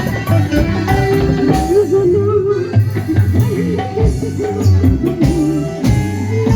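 Band music played loud over a sound system: a steady drum beat and bass under a wavering melody line.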